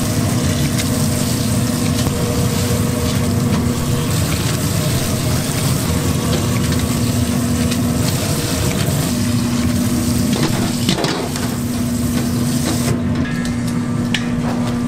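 A steady machine-like hum over a continuous rushing noise, with brief dips in the hum and a sudden change in the sound near the end.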